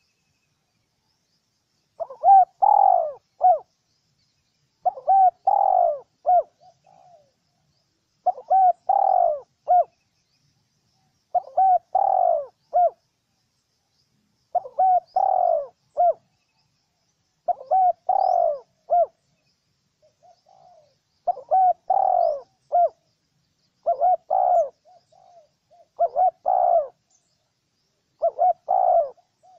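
Spotted dove cooing: a short phrase of several low, hollow coo notes, repeated about every three seconds, starting about two seconds in.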